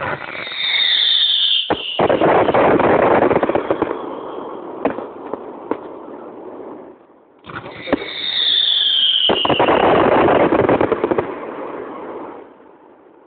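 Fireworks going off in two rounds, the second about seven seconds after the first. Each opens with a whistle that falls slightly in pitch, then several seconds of loud hissing and crackling with a few sharp bangs, dying away near the end.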